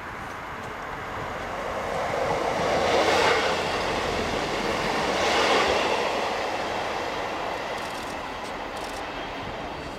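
Class 60 diesel-electric locomotive rumbling as it runs light engine, while a Class 158 diesel multiple unit passes close by. The train noise swells twice, about three and five and a half seconds in, then fades.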